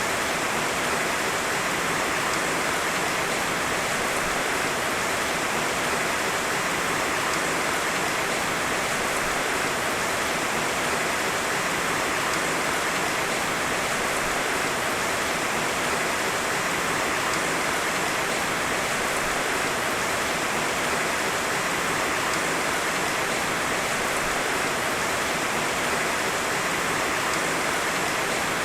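Heavy rain falling steadily, a dense even hiss with no thunder and no single drops standing out.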